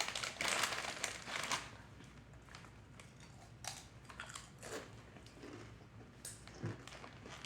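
A Ruffles potato chip bag crinkling loudly for about a second and a half, then faint scattered crunches as the chips are bitten and chewed.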